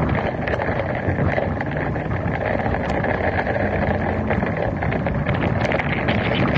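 Steady rush of wind on the microphone and tyre noise from a vehicle driving on a wet highway in rain, with a low engine hum beneath and occasional light ticks of raindrops hitting the camera.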